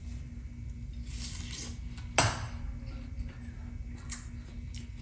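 Knife and dish clatter as a watermelon is cut and tasted: soft scraping, and a single sharp clack about two seconds in, over a steady low hum.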